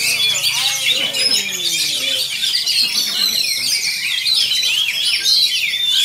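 Caged songbirds at a songbird contest singing together, a dense overlapping chorus of rapid high chirps and whistles. Voices are heard under it in the first couple of seconds.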